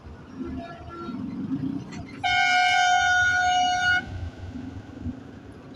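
A bus horn sounds one long, steady blast of nearly two seconds, starting about two seconds in, over steady traffic noise.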